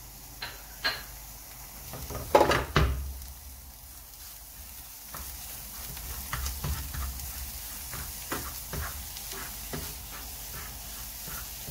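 Plastic spatula stirring and scraping mashed sweet potato around a non-stick frying pan, over a soft sizzle of the mash frying in oil. The loudest scrapes come about two and a half seconds in, followed by a run of shorter, quicker strokes.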